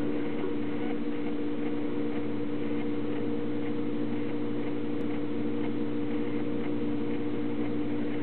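A steady mechanical hum made of several low pitches held at a constant level, with faint, regular ticking over it.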